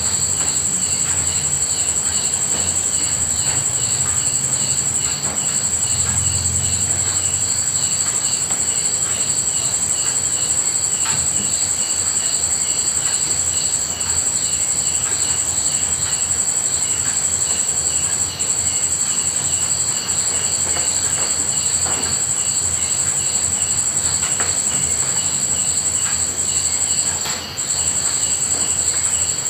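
A chorus of crickets trilling steadily at a high pitch, with a faster pulsing chirp beneath it. Underneath runs a soft even hiss of light rain with scattered faint drips. The trill dips briefly near the end.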